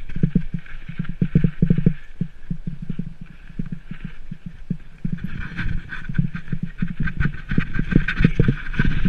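Rockrider 520 mountain bike rattling and clattering over a rough, stony dirt trail at descending speed, a dense run of quick knocks from the bumps. A rushing noise rises about halfway through as the bike picks up speed.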